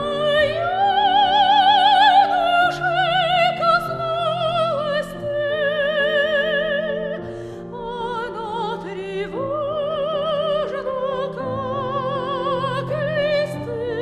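Classical soprano singing a Russian art song in long, held notes with wide vibrato, over sustained piano accompaniment.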